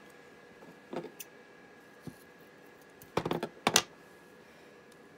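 Masking tape pulled from the roll and torn off: a quick cluster of short, sharp tearing sounds a little past halfway, after a couple of faint handling clicks.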